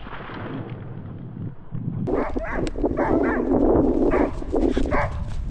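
A hunting dog barking repeatedly in short, pitched calls, starting about two seconds in after a stretch of steady noise.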